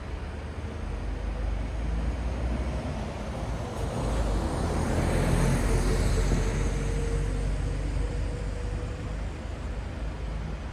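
Road traffic at a city crossroads: a steady low rumble of engines and tyres, with a vehicle passing close about four to seven seconds in, its noise swelling and fading with a steady hum.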